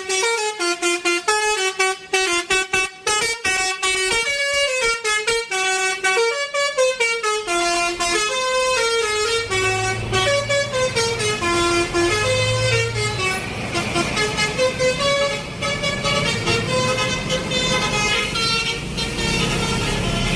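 Basuri telolet musical horn playing a melody note by note, each note a short horn tone with a click between notes. From about eight seconds in, a low rumble joins beneath the tune.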